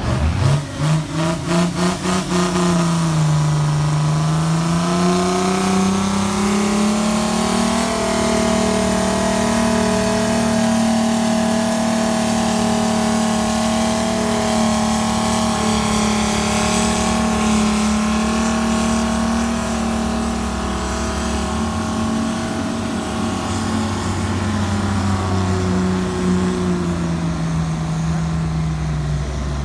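Diesel farm tractor engine working flat out, pulling a weight-transfer sled. The revs climb over the first few seconds, hold steady under full load for about twenty seconds, then drop away near the end as the pull finishes.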